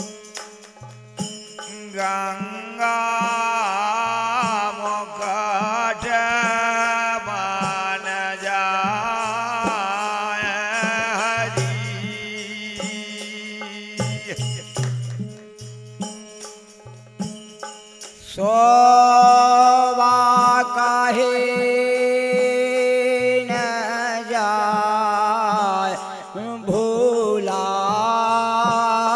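Bundeli tamura bhajan music between sung lines: a steady drone runs under a wavering melodic line. It gets louder from about 18 seconds in, with held notes.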